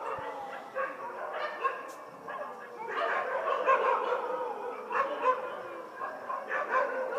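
Several dogs barking and yelping at once in a continuous, overlapping chorus.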